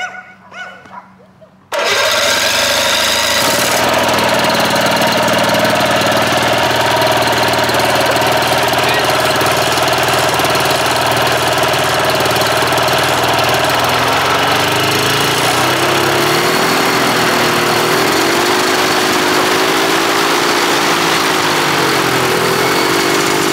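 Hirth 2703 two-stroke ultralight airplane engine on a go-kart catching about two seconds in, then running loud and steady as it spins the pusher propeller. In the last several seconds its note wavers up and down in pitch.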